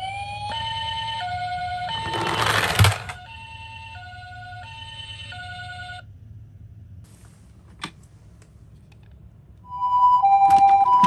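Toy ambulances' electronic sirens: a rising wail turns into a hi-lo two-tone siren, Japanese ambulance style, switching pitch about every 0.7 seconds. Around two seconds in, a short rush of rattling noise ends in a sharp thud. Near the end, a louder pulsing electronic two-tone sound starts.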